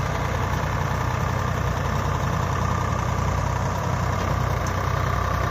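Diesel engines of a Swaraj 744 FE and a Mahindra 265 DI tractor running steadily together while chained nose to nose, pulling against each other in a tug-of-war.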